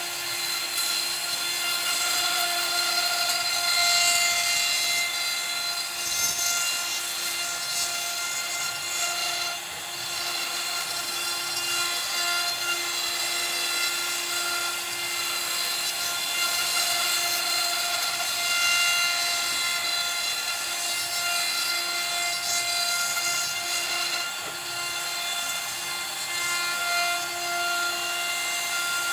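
CNC router spindle running with a steady whine while its bit cuts a groove in a wooden panel, the cutting noise swelling and easing slightly as the bit moves.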